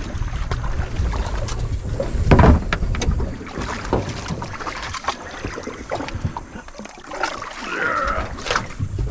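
Feet splashing as they wade in shallow creek water, with irregular knocks and scrapes against a small boat's hull as dogs are pulled and lifted aboard. There is a heavy thump about two and a half seconds in.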